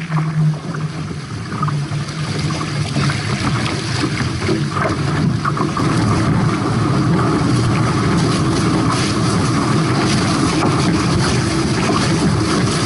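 Hobie 18 catamaran's hull rushing through the water with wind buffeting the microphone, steady and louder from about halfway in as the boat sails fast and throws spray.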